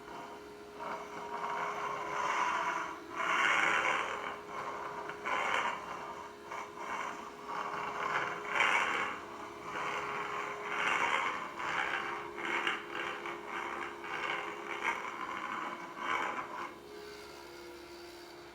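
Irregular scraping noises in bursts of about a second, over a steady faint hum that drops slightly in pitch about twelve seconds in.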